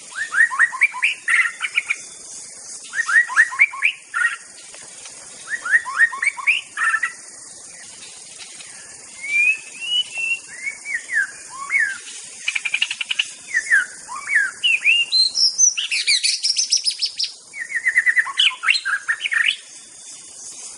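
White-rumped shama singing: a string of short, varied phrases of quick rising and falling whistled notes with brief pauses between them, turning to faster trills and higher notes in the second half, over a faint steady high hiss.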